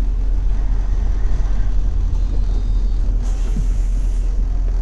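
City bus engine running with a steady low rumble heard from inside the cabin as the bus comes to a stop. A hiss of air comes about three seconds in.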